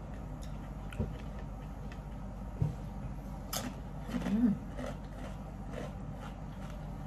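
A person eating at a table: a few soft knocks and clicks, and a brief closed-mouth hum about four seconds in while chewing, over a steady low background hum.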